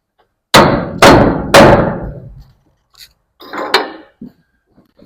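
Three loud hammer blows on wood, about half a second apart, each ringing out in the barn. Lighter knocking follows about three and a half seconds in.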